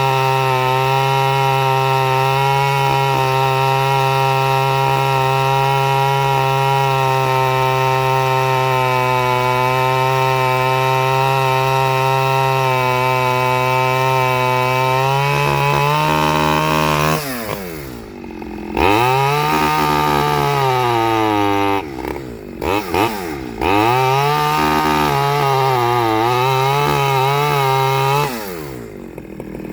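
Stihl 009L two-stroke chainsaw with its standard single-screw carburettor running at steady high revs. After about fifteen seconds the revs sag and climb again several times, dropping away sharply three times.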